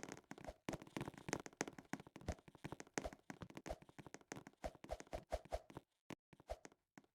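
Faint, irregular small clicks and taps, several a second, thinning out near the end.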